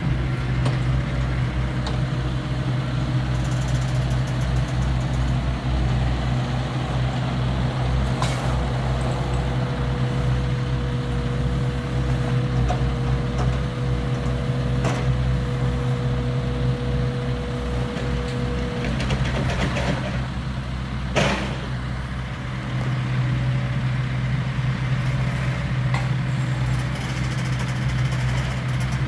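A large engine idles steadily, most likely work equipment or a truck at a water-line repair. A steady higher whine rides over it from about 8 to 19 seconds in, and one sharp knock comes about 21 seconds in.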